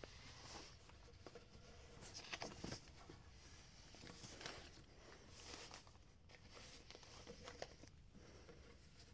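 Faint scraping and rustling from work at a manual rotary screen-printing press: a few brief swishes, the loudest about two and a half seconds in.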